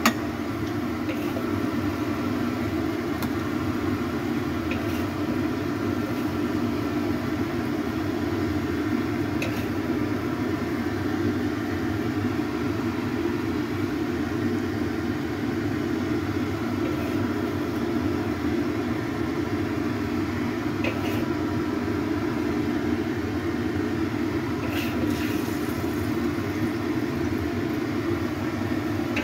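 A steady mechanical hum with a few faint clicks of the spatula against the ceramic plate as the braised stuffed tofu is slid onto it.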